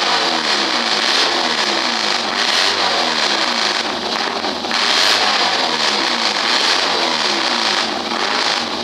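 Triumph auto-race motorcycle engine running loud on an open exhaust, revved up and down again and again.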